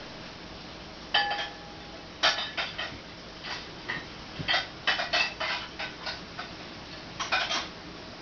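Irregular clinks and clatters of hard objects knocking together, like dishware or metal, in short clusters; the first rings briefly.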